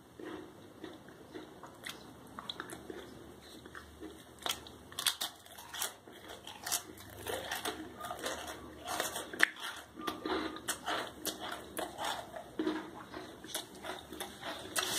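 Someone biting into and chewing dry square crackers: a run of irregular crisp crunches.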